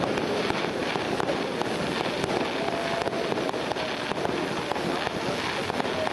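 Aerial fireworks bursting overhead with a dense, steady crackle of many small pops, and sharper cracks scattered through it.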